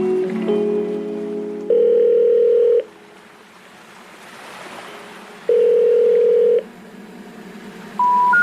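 Background music of sustained chords, broken twice by a flat steady tone about a second long, with a soft hiss between them. Near the end come short single beeps, each higher than the last.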